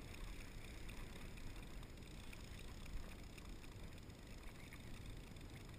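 Fishing reel being cranked in under load, with faint light clicks over a steady low rumble of wind and water.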